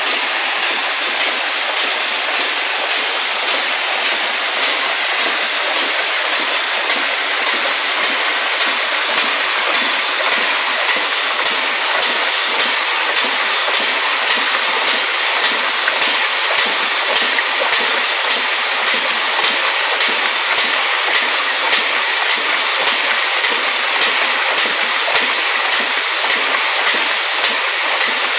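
Air-operated double diaphragm pump running on compressed air: a loud, steady hiss of exhaust air through its muffler, pulsing in a regular rhythm with the pump's strokes, with water gushing from the discharge hose into the tank.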